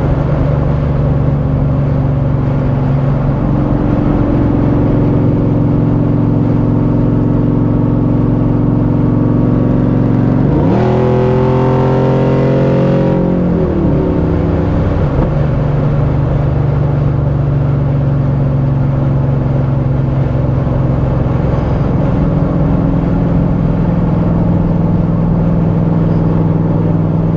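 GM V8 engine with its cylinder deactivation (DoD) deleted, running through an exhaust with the cutouts open while driving. It drones steadily, then about ten seconds in the engine pitch rises sharply under hard acceleration for about two seconds before falling back to a steady cruise.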